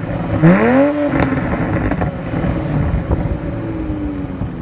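Toyota GR Supra exhaust: a quick throttle blip about half a second in, the note rising sharply and then falling away, followed by a few sharp pops and crackles on the overrun. Near the end the engine settles back, its note sinking slowly.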